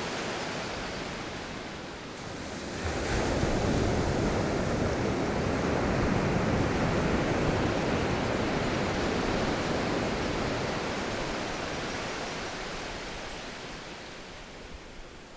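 Sea surf washing onto a beach, with wind rumbling on the microphone. The wash of the waves swells about three seconds in and slowly dies away toward the end.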